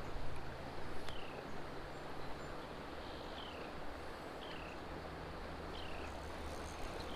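Steady rush of a small stream's running water, with a bird repeating a short, falling chirp about every second or two.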